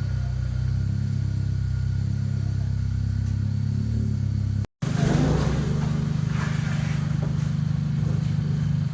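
Car engine running steadily at a low, even pitch. The sound cuts out completely for a moment about halfway through, then the engine is heard running again.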